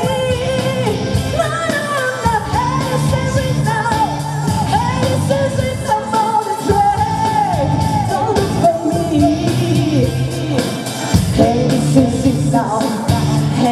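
Live pop-rock song: a woman singing lead into a microphone over a loud band backing, amplified in a large hall.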